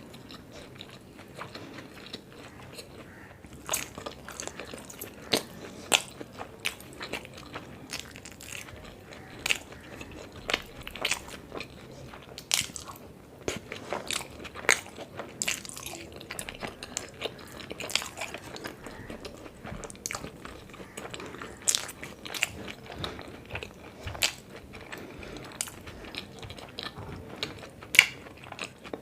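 Close-miked eating sounds: a person chewing and biting into stuffed parathas, with irregular wet mouth clicks and smacks, some louder than others.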